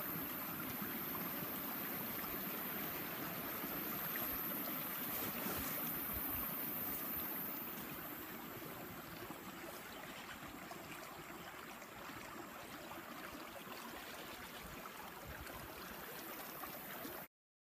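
Shallow stream of water running over stones and gravel, a steady trickling rush, a little fainter after about eight seconds, cutting off suddenly just before the end.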